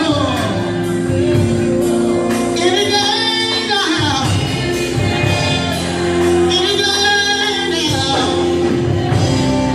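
Gospel music: singing with gliding vocal runs over steady held instrumental chords.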